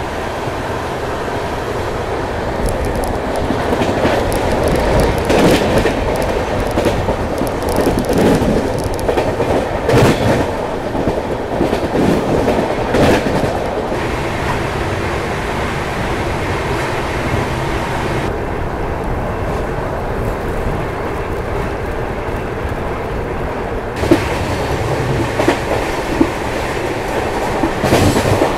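Double-decker AC express train running at speed, heard from inside the coach: a steady rumble of wheels on the rails, with a run of sharp clacks over rail joints in the first half and a few more near the end.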